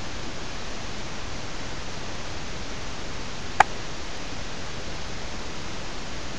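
A single short, sharp hiccup about three and a half seconds in, over a steady hiss.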